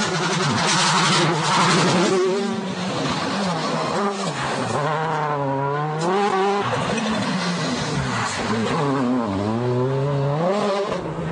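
Mitsubishi Lancer WRC05 rally car's turbocharged four-cylinder engine revving hard, its note dropping and then climbing again several times as the car slows for tarmac corners and accelerates out of them.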